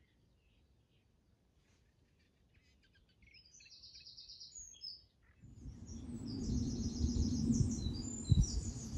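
Wild birds chirping and trilling, faint at first and louder from about three seconds in. From about halfway a low rush of wind on the microphone comes in under rapid, high trilling calls.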